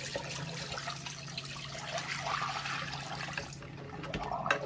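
Used cleaning water poured out of a plastic bucket, splashing and gurgling into a bathroom sink as it drains, over a steady low hum. The pour thins out near the end, followed by a light knock as the bucket meets the sink.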